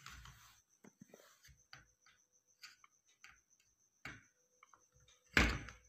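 Light, scattered clicks and taps of a soldering iron tip and fingers on a TV power supply circuit board while a diode is desoldered, with a louder thump about five and a half seconds in.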